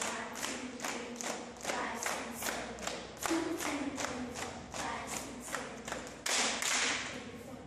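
Steady rhythmic hand clapping, about two and a half claps a second, with voices singing along.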